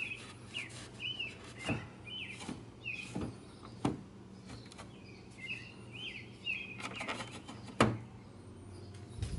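Small birds chirping: short arched calls repeated in scattered bunches, with a few light knocks, the sharpest about eight seconds in.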